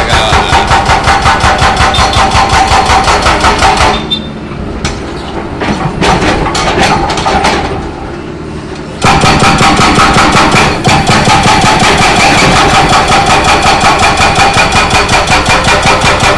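Excavator-mounted hydraulic breaker hammering a concrete road in rapid, even blows. About four seconds in it stops for roughly five seconds, leaving the machine's engine running with a few stray knocks, then resumes hammering.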